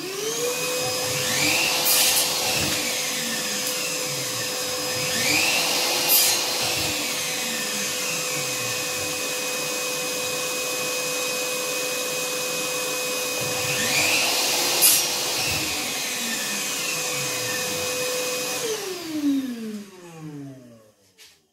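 Wet/dry shop vacuum switching on and spinning up, running at a steady pitch with three brief louder surges, then winding down in a falling tone near the end after it is switched off.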